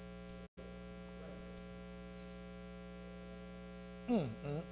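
Steady electrical mains hum on the church sound system, cutting out for an instant about half a second in. A short vocal sound comes near the end.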